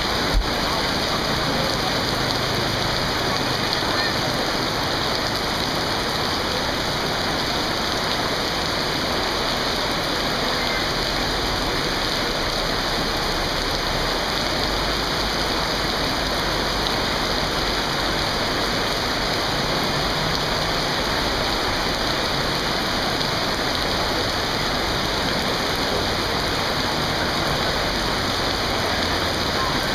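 Heavy tropical rain pouring steadily onto a flooded road, a dense even hiss throughout, with one brief thump just after the start.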